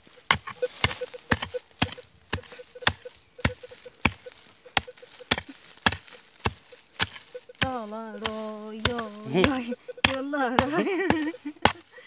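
Footsteps crunching on the forest floor at a steady walking pace, about two steps a second. Past the middle, a voice gives a held wordless hum and then a shorter, wavering one.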